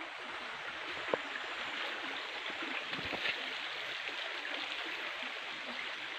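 Shallow rocky creek flowing with a steady rushing sound. A sharp click about a second in and a couple of soft knocks around three seconds.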